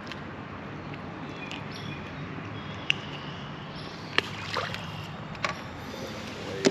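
Steady background noise of a small fishing boat on the water, with a few light, sharp clicks and taps.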